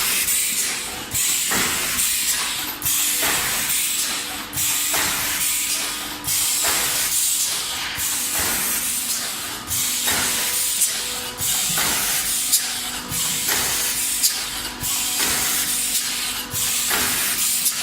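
Paper plate forming machine running in steady cycles: a loud hiss that breaks off briefly and starts again about every two seconds, over a faint steady hum.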